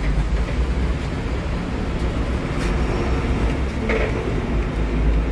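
Steady low rumble of street background noise, with a few faint clicks and a short clatter about four seconds in.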